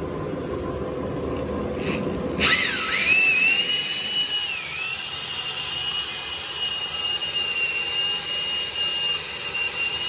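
A drill turning a worm-gear winch, winding cable to raise the sawmill's saw head. It starts about two and a half seconds in with a quickly rising whine, then runs at a steady high whine that dips once briefly.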